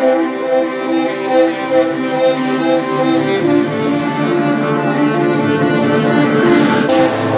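Orchestral music led by bowed strings, in long held notes. A rising swell of noise comes in near the end.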